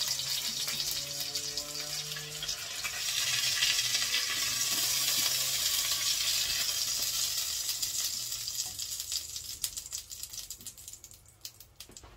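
Chicken thighs sizzling in hot oil in a non-stick frying pan. The sizzle dies away from about eight seconds in, with a few light clicks of kitchen tongs near the end.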